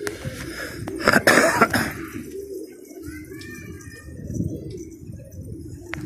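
Domestic pigeons cooing, with a loud burst of wing flapping about a second in as birds land on the perch. A few short, high rising chirps follow a little later.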